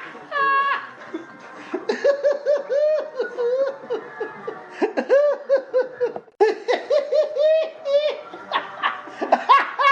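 Laughter sound effects in succession: high-pitched giggling bursts at the start and again near the end, and in between a lower-pitched laugh of rapid, evenly repeated 'ha' pulses, broken by a brief gap about six seconds in.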